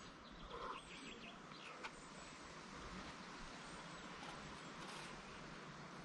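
Faint woodland ambience with a few faint bird chirps, and one brief soft sound about half a second in.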